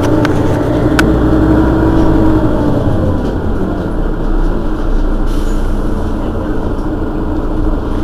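Mercedes-Benz Citaro city bus's diesel engine idling while the bus stands at a stop, a steady low rumble. A hum riding on it fades away about three seconds in.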